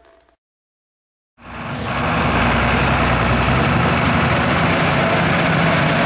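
Deutz-Fahr Agrotron tractor's diesel engine running steadily. It fades in about a second and a half in and cuts off abruptly near the end.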